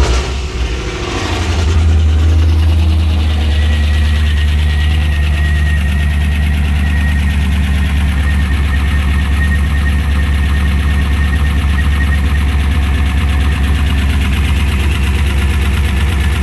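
Freshly rebuilt 6.0-litre L76 V8 catching on its first start and settling within about two seconds into a steady fast idle. A ticking chatter runs through it, which the builder takes for valve train chatter, maybe just the valve covers.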